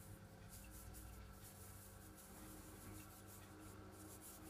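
Faint rubbing of a tissue loaded with cleaning powder over a silver Maple Leaf coin, a light rub to remove milk spots, under a low steady hum.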